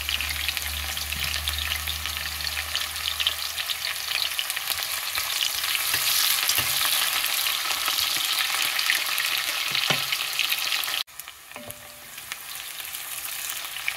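Chopped red onions sizzling in hot palm and vegetable oil in an enamelled cast-iron pot, stirred with a wooden spoon: a dense crackling sizzle. About eleven seconds in it drops suddenly to a quieter sizzle.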